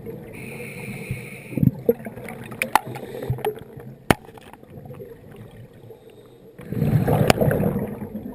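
Scuba diver breathing through a regulator underwater. A short inhale hiss comes near the start and a few sharp clicks follow; about six and a half seconds in, exhaled bubbles gurgle out for about a second and a half.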